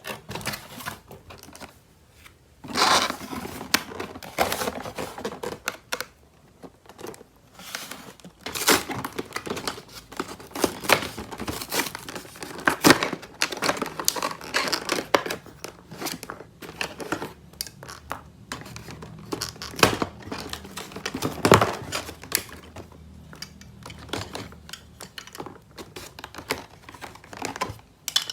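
Toy packaging being handled by hand: irregular crinkling and tearing, with sharp clicks and rustles coming in uneven bursts.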